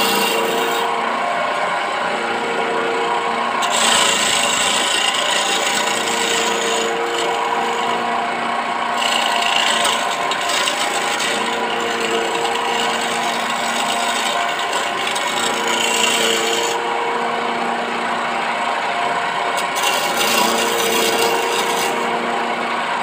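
Wood lathe motor running steadily while a hand turning chisel scrapes and shaves a spinning teak table leg. The cutting hiss comes in several bouts over the lathe's hum.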